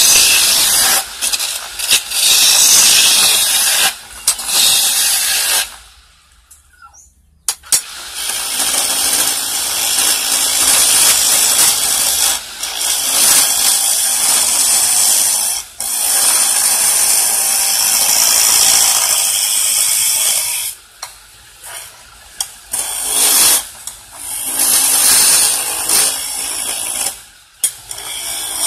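Hand chisel cutting a spinning wooden handle on a belt-driven wood lathe: a loud, hissing scrape of wood being turned. It stops for about a second and a half some six seconds in, and drops out briefly a couple more times later on.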